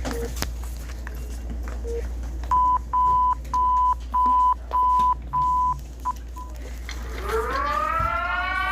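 Emergency alert sequence: six short, evenly spaced single-pitch beeps, then two quick shorter ones, over a low steady hum. About seven seconds in, a warning siren winds up, rising in pitch and settling into a steady wail.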